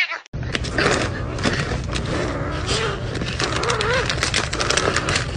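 A cat's loud meow breaks off at the very start. Then an orange kitten makes low growling sounds as it clutches a squeeze-tube treat packet, over rustling, crinkling and a string of handling clicks.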